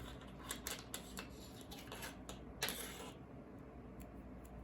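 Faint rustling and light clicks of a crochet hook working cotton crochet thread into chain stitches by hand, a scatter of small ticks over the first three seconds, then quieter.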